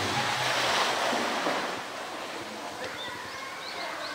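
Pool water splashing and sloshing after a large ball toy is thrown in, loud at first and settling after about two seconds.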